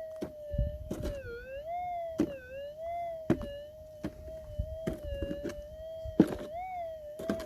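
Minelab GPZ 7000 gold detector's continuous audio tone, wavering slightly in pitch, with irregular sharp strikes of a pick digging into hard ground every second or so.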